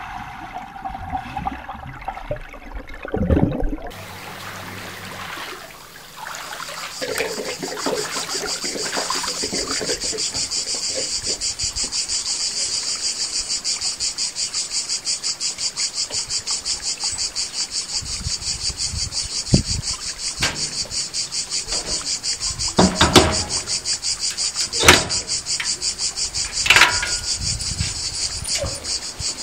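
Cicadas buzzing in a steady, rapidly pulsing high drone, after a few seconds of muffled underwater sound at the start. Several sharp knocks sound in the last third.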